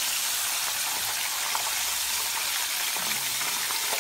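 Chicken pieces deep-frying in hot oil in a cast-iron skillet: a steady sizzle with small crackles throughout.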